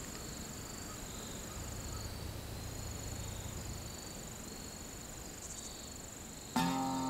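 Steady high-pitched insect chirring over a low outdoor hum. Background music comes in abruptly near the end.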